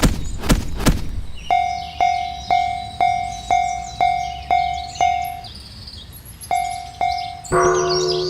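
Japanese level-crossing warning bell ringing, its pitched strikes about two a second, each fading before the next. It opens with three sharp knocks, stops briefly, and near the end a lower-pitched bell tone joins in. Birds chirp faintly behind it.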